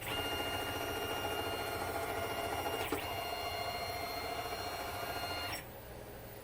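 Tormach Slant-Pro lathe's Z-axis drive running for about five and a half seconds, then stopping suddenly: a steady motor whine over fast, even clicking, with one sharp click about three seconds in where the whine changes. The clicking comes from the Z-axis belt pulley, whose pin was working its way out.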